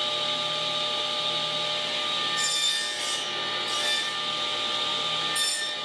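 Table saw running steadily with a motor hum, its blade cutting into a small wooden rail in three short bursts as tenons are cut on the rail's end.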